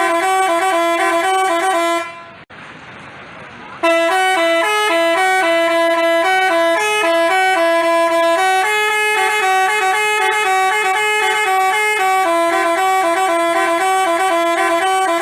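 Basuri 'telolet' multi-tone bus horn playing a melody of short, quickly changing notes. It stops for nearly two seconds about two seconds in, then resumes in a longer run.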